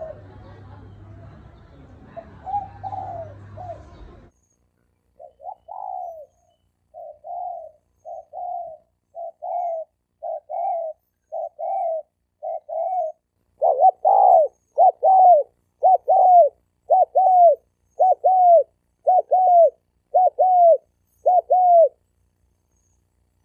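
Spotted doves cooing. A few coos over a background hum, then after a short break a long run of short, evenly spaced coo notes, about one and a half a second, that gets louder about halfway through and stops shortly before the end. These are the calls of young male spotted doves challenging each other.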